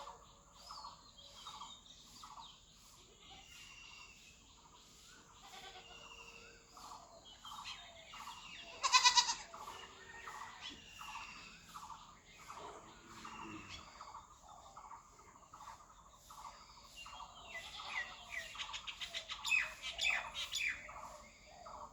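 Birds chirping in a steady run of short repeated calls, with one loud, harsh call about nine seconds in and a flurry of rapid calls near the end.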